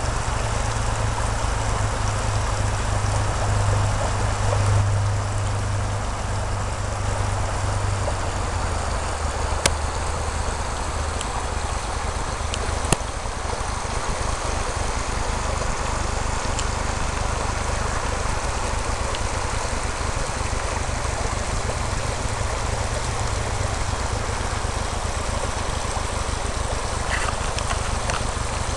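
Shallow river running over stones, a steady rushing, with a steady low hum underneath that drops slightly in pitch about eight seconds in. Two sharp clicks come about ten and thirteen seconds in.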